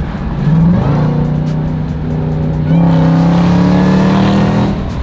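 Jeep Grand Cherokee Trackhawk's supercharged 6.2-litre Hemi V8 pulling hard under acceleration, breathing through a new cold air intake. The loud engine note shifts in pitch about a second in, swells near three seconds and falls off near the end.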